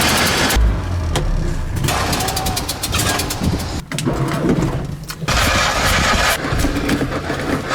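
Fiat 126's air-cooled two-cylinder engine being cranked on the starter and sputtering as it tries to catch while the accelerator is pumped. The sound breaks off briefly about four seconds in and again about five seconds in, then starts again.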